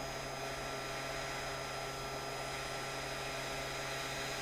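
Steady hiss of blowing air with a low electrical hum from the soldering bench equipment, unchanging throughout.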